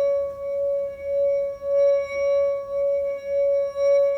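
Wine glass partly filled with water singing as a wet finger is rubbed around its rim: one steady ringing tone with overtones, swelling and fading about twice a second with each circuit of the finger.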